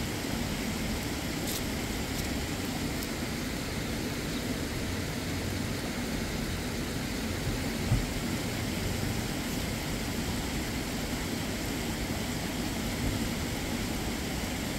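Steady low rumble of a vehicle driving, with one short knock about eight seconds in.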